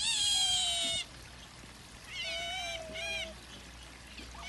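Otters calling with high-pitched, whining squeals: one long, loud call that falls slightly in pitch, then after a pause two shorter, softer calls.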